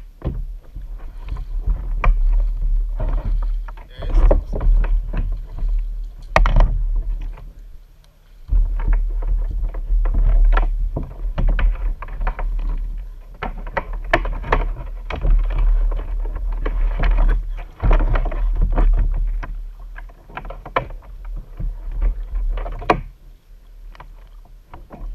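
Double-bladed kayak paddle dipping and splashing through the water stroke after stroke, with water dripping from the blades, beside a Vibe Yellowfin 100 sit-on-top kayak. A heavy low rumble comes and goes beneath the strokes, and the paddling eases off near the end.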